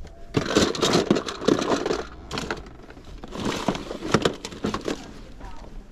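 Small plastic toys clattering against each other and a plastic storage bin as a hand rummages through them, in two busy spells of rapid clicks and knocks.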